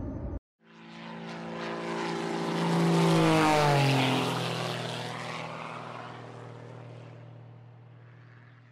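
An airplane flying past: it swells in, is loudest about three seconds in as its engine tones drop in pitch, and then fades slowly away.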